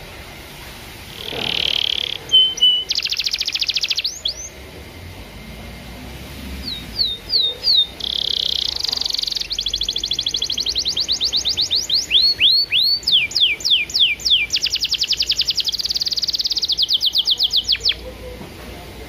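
Domestic canary singing a long song of rolling fast trills, buzzy notes and quick repeated downward-sweeping whistles, with a pause of about two seconds partway through.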